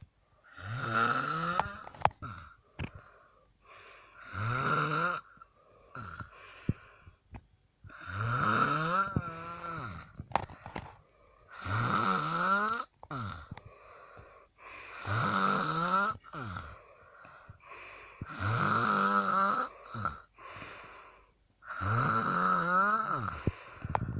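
A girl snoring loudly and regularly, about one snore every three and a half seconds, seven in all. Each snore has a rising, voice-like pitch and is followed by a softer breath.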